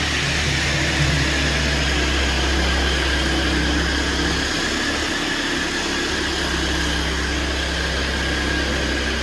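Steady mechanical running noise with a low hum and a faint high whistle, like a motor or engine running without a break.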